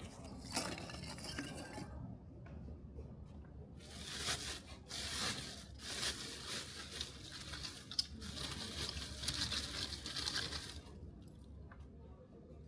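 Intermittent scraping and rubbing, coming in hissy stretches with a few sharp clicks, the longest running from about four seconds in to about eleven seconds.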